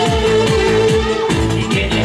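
Loud electronic dance music with a steady, driving kick-drum beat, the Northwest Vietnamese nhạc sàn style played for xòe dancing.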